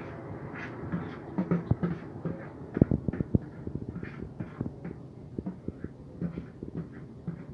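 A metal spoon scraping and tapping irregularly against a plastic mixing bowl as macaroni salad is scooped out, with a few louder knocks about three seconds in.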